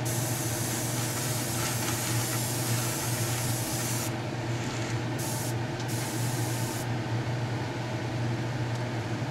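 Airbrush hissing as weathering paint is sprayed, in a long stretch and then short bursts, stopping about seven seconds in. A steady low hum runs underneath.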